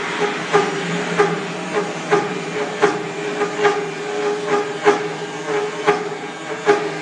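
5-axis CNC router cutting a wooden workpiece: a steady machine hum with repeated sharp knocks, about one or two a second.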